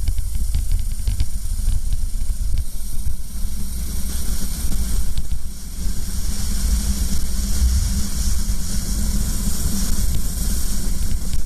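Go-kart engine running under load, a low drone, heard through heavy wind rush on the kart-mounted camera's microphone as the kart accelerates down a straight.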